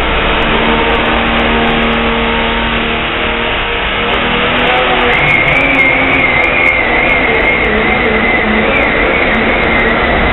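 Diesel pulling truck's engine running hard at high revs under load, loud and steady.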